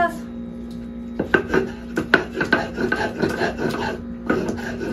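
Stone metate and metlapil rasping back and forth in repeated strokes, with a few sharper knocks, as raw chipotle chiles are ground by hand into salsa.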